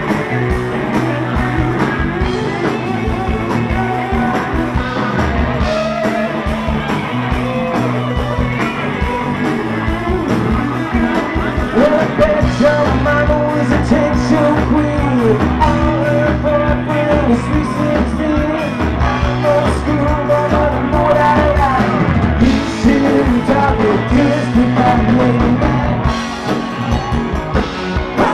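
Live rock band playing: a man singing over electric guitar and drums, with a steady beat.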